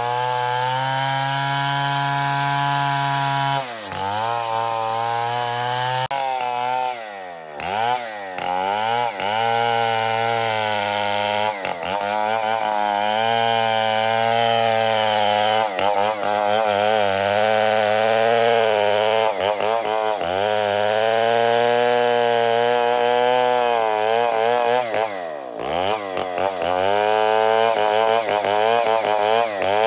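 STIHL 070 large two-stroke chainsaw ripping lengthwise through a merbau hardwood log. Its engine holds a steady high speed for the first few seconds, then its pitch repeatedly sags and climbs back under the load of the cut.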